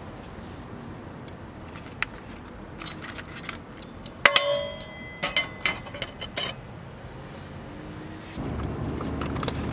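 Dishes and eating utensils clinking during a meal: one sharp, ringing clink about four seconds in, followed by a few lighter clicks.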